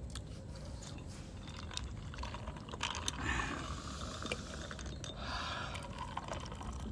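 Eating sounds: scattered sharp clicks and crackling of clam shells being handled and chewed, with a denser patch of crackle about three seconds in and again around five seconds.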